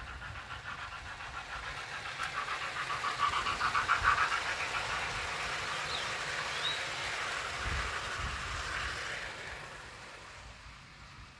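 00 gauge model train coaches rolling past on garden railway track, the wheels making a rapid rhythmic clatter. Loudest about four seconds in, then fading away as the train moves off.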